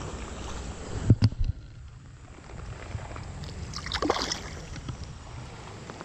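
Creek water flowing and sloshing around a wading angler, with a couple of dull handling knocks about a second in.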